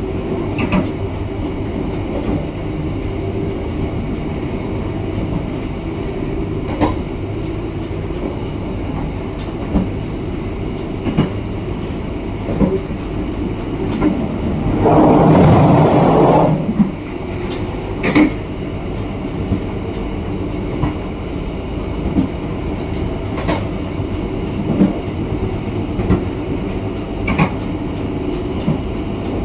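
Passenger train running, heard from on board: a steady rumble with wheel clicks over the rail joints every second or so. About halfway through, a louder rushing noise lasts about two seconds.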